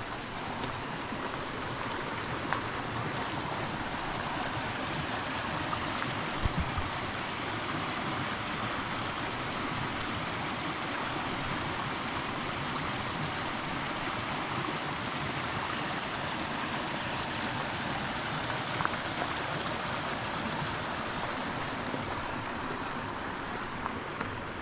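Small stream running over rocks: a steady rush of water, with a few faint knocks.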